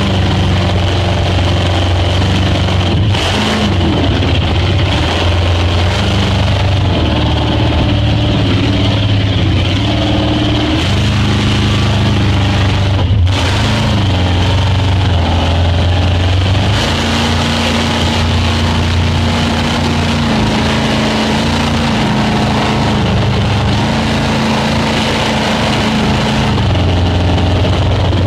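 Speedboat engine running under way, its pitch shifting up and down several times as the throttle changes, over a steady rush of noise.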